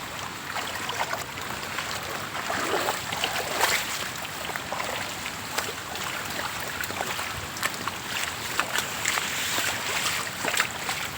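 Floodwater flowing and lapping, a steady rushing hiss with frequent small splashes.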